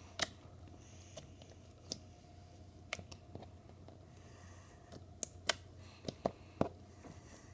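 Slime being played with in the hands, giving off scattered sharp little clicks and pops, about a dozen at uneven intervals.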